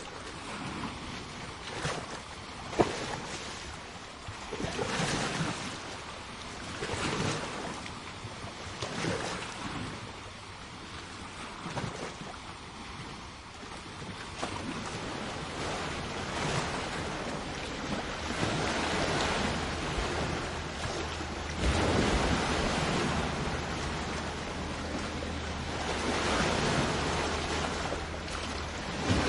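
Sea waves washing onto a shore, the surf swelling and falling back every few seconds, with a low rumble of wind on the microphone in the later part.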